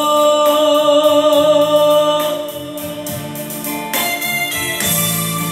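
Live karaoke singing over a backing track through a sound system with a Lexicon PCM92 effects unit: the singer's held final note fades out about two seconds in, and the instrumental backing carries on.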